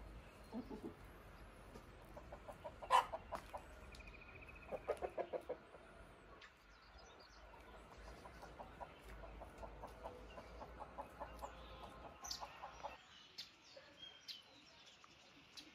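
Domestic hens clucking: a quick run of clucks about five seconds in, then a long stretch of rapid, even clucking that stops about thirteen seconds in. One sharp, louder sound comes about three seconds in.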